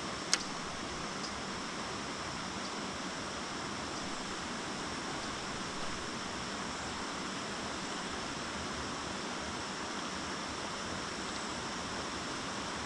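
Steady rushing of flowing water, an even hiss with no change in level, with a thin continuous high drone of insects above it. A single sharp click about a third of a second in.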